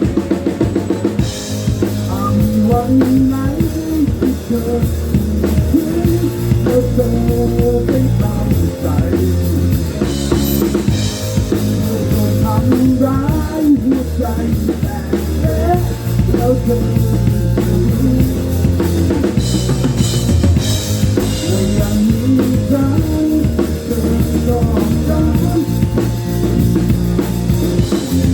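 Loud rock-style music with a drum kit and heavy bass, played through a sound system.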